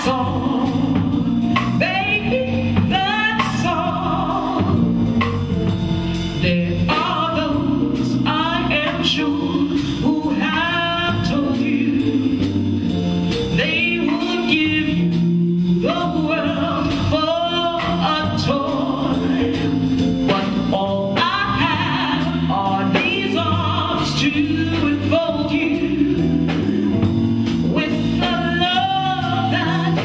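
A woman singing live into a microphone, with long, wavering sustained notes, backed by a small band with electric guitar and drums.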